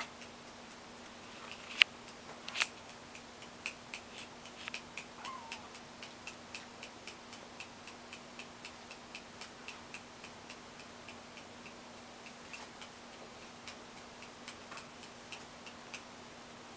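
Steady, even ticking at about three ticks a second, like a clock, with two sharper clicks about two seconds in and a faint steady hum underneath.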